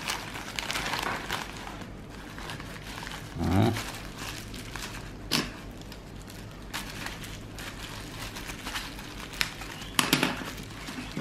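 Plastic postal mailer crinkling as it is torn open, then bubble wrap rustling as a utility knife cuts through it and it is unrolled, with a few sharp clicks. A short pitched sound that bends upward, possibly a voice, comes about three and a half seconds in.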